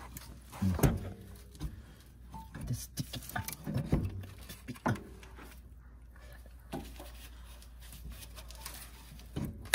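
Scattered knocks and clunks of metal parts as a coilover is pushed by hand to line it up with the front wheel hub, over a steady low hum. The loudest knocks come about a second in and about four seconds in.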